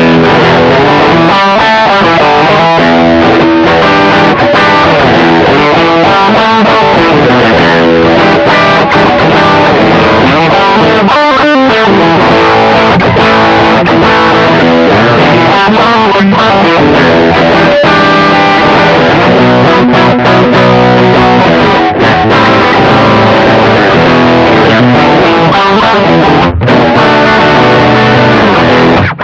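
Electric guitar played through a Caline Orange Burst overdrive pedal (a clone of the BB Preamp) and a Joyo California amp simulator, recorded direct. It plays a continuous, loud overdriven passage of chords and single-note lines.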